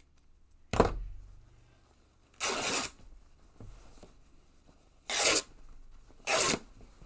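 A knock about a second in, then three short rips of craft fabric or paper torn by hand, each about half a second long.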